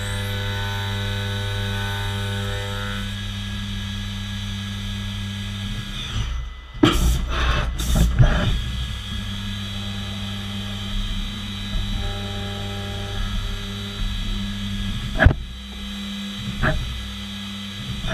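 Fanuc Robodrill CNC machining center milling a plastic part: steady machine hum with several higher steady tones over it for the first few seconds. There is a louder stretch of cutting noise about seven seconds in, and two sharp clicks near the end.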